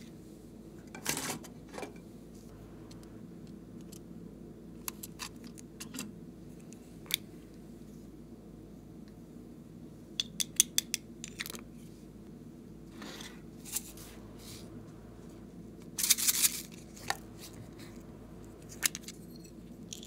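Small plastic containers of slime toppings being handled: scattered clicks and taps of lids and boxes, with a quick run of ticks about ten seconds in and a longer rattling burst about sixteen seconds in, over a low steady hum.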